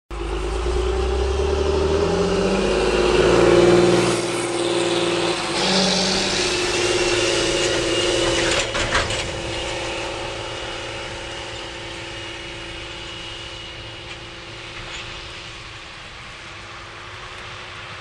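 Farm tractor engine pulling a grain cart past at close range, running loud and then fading steadily as it moves off. A few sharp knocks about halfway.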